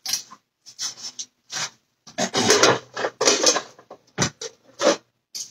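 Kitchen utensils and cookware being handled and moved about on the counter: a run of irregular knocks, clatters and scrapes, busiest in the middle.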